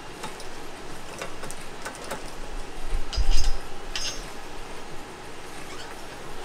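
Hard fuel line being pulled through a vise-mounted roller tube straightener: metal tubing and rollers clicking and clinking, with a low thump and a brief metallic ring about three seconds in and another ring about a second later.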